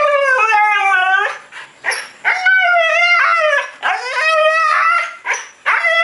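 Dog howling in long, wavering, drawn-out calls, about four in a row with short breaks between them.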